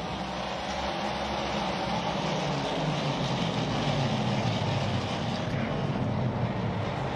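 A pack of NASCAR Cup stock cars' V8 engines running at racing speed, a steady dense engine drone with pitches drifting slightly up and down as the cars pass.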